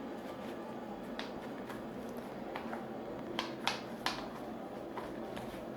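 A handful of short, sharp clicks at irregular intervals, the two strongest close together about four seconds in, over faint room background.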